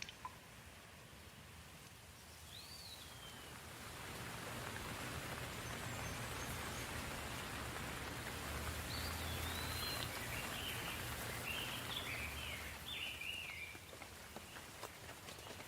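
Gentle rain falling, its hiss swelling a few seconds in and easing near the end, over a faint low rumble. A bird chirps briefly once early on and several times in the second half.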